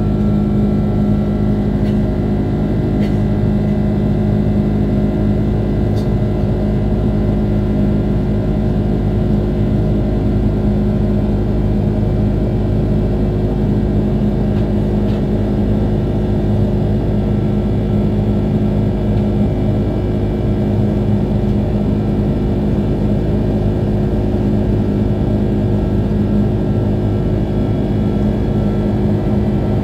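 Steady cabin drone of an Airbus A330-200's Rolls-Royce Trent 700 turbofans climbing out after takeoff, heard through the fuselage. It is a constant low hum made of several steady tones, the strongest a low one.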